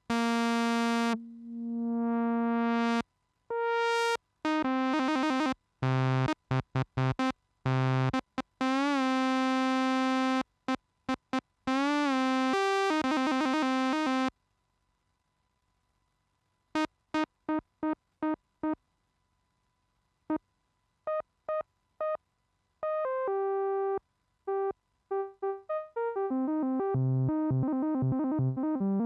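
Moog Subsequent 37 analog synthesizer playing single notes and short phrases with a bright, buzzy tone. The filter opens up on a held note about two seconds in, and the pitch wavers on held notes midway. After a short pause come short staccato notes that come faster near the end.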